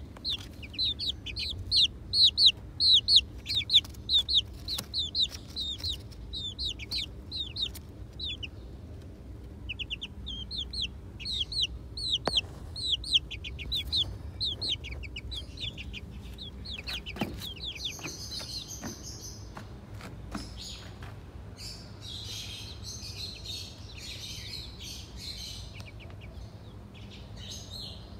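Baby chicks peeping: quick runs of short, high, falling peeps, loudest in the first half. Patches of scratchy noise join them in the second half.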